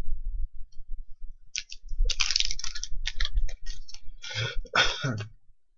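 Yu-Gi-Oh booster pack's foil wrapper being handled and torn open: low handling bumps, then from about a second and a half in a dense run of crinkling and crackling that stops shortly before the end.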